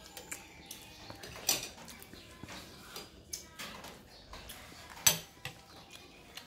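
Metal spoons clinking and scraping against ceramic bowls and plates during a meal, with two sharper, louder clinks, about a second and a half in and about five seconds in.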